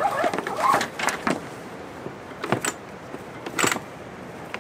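Rope line being handled and wrapped around a sailboat winch drum: squeaking and rubbing of the line in the first second, then two sharp knocks about two and a half and three and a half seconds in.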